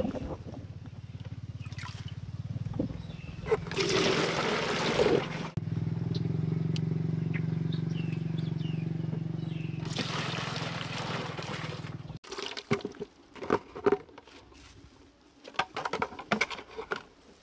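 Well water being poured and splashing in two spells, a few seconds in and again around ten seconds, over a steady low hum that cuts off suddenly about twelve seconds in. Scattered knocks and clatter follow.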